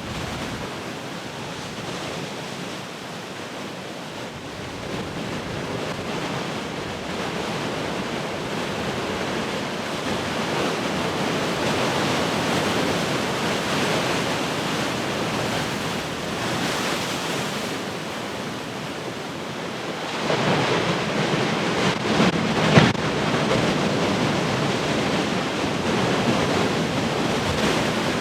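Heavy ocean surf: waves breaking and washing in, building slowly in waves of sound, with a big wave crashing about twenty seconds in and its loudest crash a couple of seconds later.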